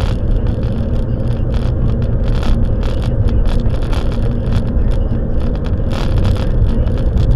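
Steady road and engine rumble inside a moving car's cabin, with frequent small rattles and ticks.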